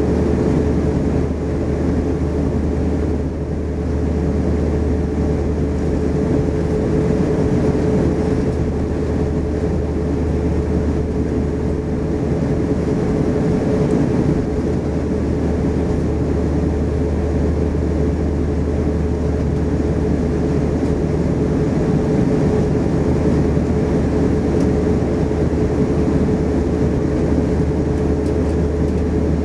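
Cabin noise of an Airbus A340-500 taxiing with its Rolls-Royce Trent 500 engines at idle thrust: a steady low rumble with a constant whine.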